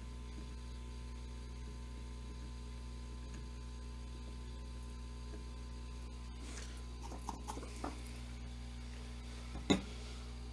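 Steady electrical mains hum at a soldering bench. Faint scratching handling sounds come about two-thirds of the way in, and one sharp click near the end.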